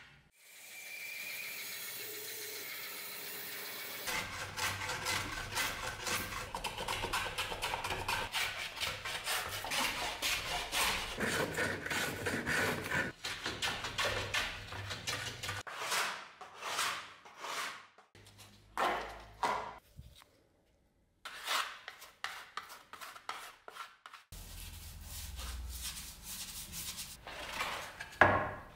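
Hand plane shaving a long strip of wood, stroke after stroke, in runs broken by short pauses.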